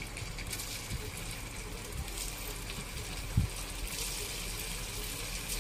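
Cut idli pieces deep-frying in hot oil: a steady sizzle, with a short knock about three and a half seconds in.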